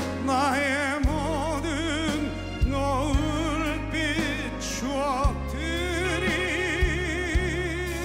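Live band playing a slow ballad: a lead melody with wide vibrato over sustained bass notes and a soft kick drum.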